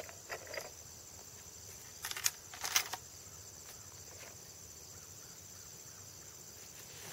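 A steady high insect trill in the background, with a few rustling footsteps through grass about two seconds in as the hunter stalks closer on foot.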